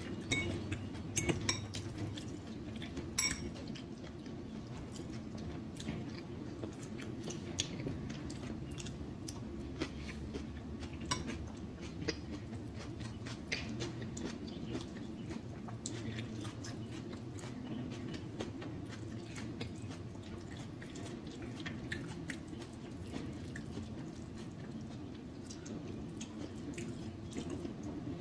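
Close-miked chewing of a shrimp boil in butter sauce, with scattered short clicks and clinks of cutlery or dishes.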